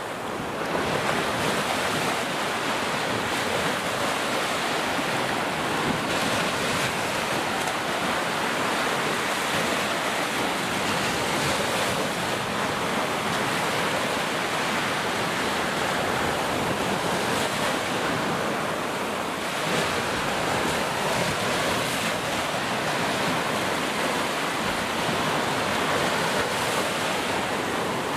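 Ocean surf: waves breaking and washing in a continuous, dense rush with slow gentle swells in loudness, with some wind on the microphone.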